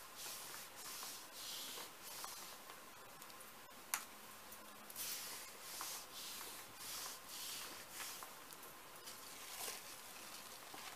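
Hands rubbing a sheet of paper pressed onto a paint-covered gel printing plate, a run of faint swishing strokes as the paint is burnished onto the paper. A single sharp click comes about four seconds in.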